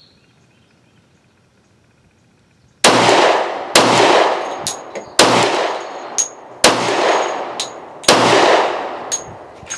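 Glock 20 10mm pistol firing five rounds of 180-grain Sellier & Bellot ammunition after about three seconds of quiet. The first two shots come close together and the rest about one and a half seconds apart, with a lighter metallic clink between shots. The pistol cycles every round without a stoppage.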